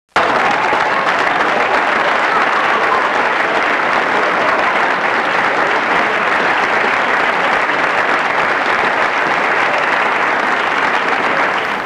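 Dense, steady applause from a crowd, starting suddenly and easing off slightly near the end.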